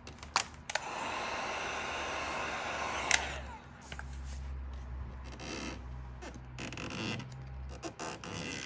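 Vinyl wrap film on a car's front grille trim being peeled back and lifted. A few sharp clicks come first, then a rasping peel of about two seconds, then softer crinkling and rustling of the film as it is handled.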